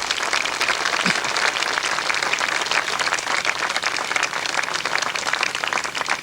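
Audience applauding: many hands clapping in a dense, steady patter that dies away at the end.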